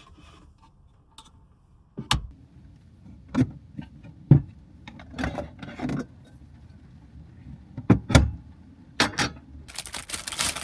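A series of separate knocks and thumps as objects are handled and set down, with two close thumps about eight seconds in, then a crackle of plastic packaging starting near the end.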